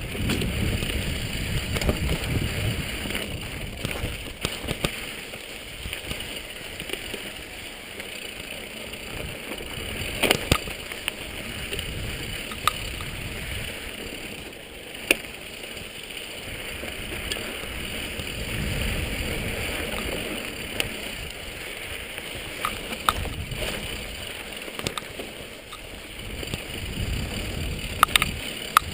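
Mountain bike riding down a rocky trail: wind buffeting the helmet camera's microphone in a fluctuating rumble, with tyre noise and scattered sharp knocks and rattles from the bike.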